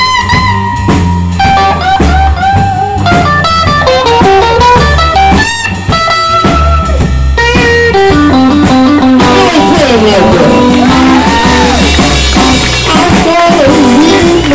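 Live blues band instrumental: a semi-hollow electric guitar plays a lead solo of held, bent notes and quick descending runs over electric bass and drum kit. The cymbals wash louder in the second half.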